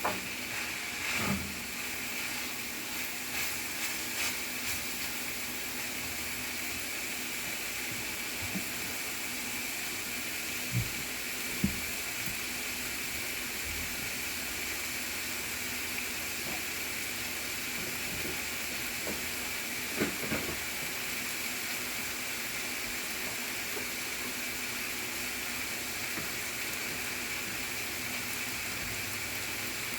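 Seasoned ground beef for taco meat sizzling steadily in a hot pan, with a few sharp knocks about a third and two thirds of the way through.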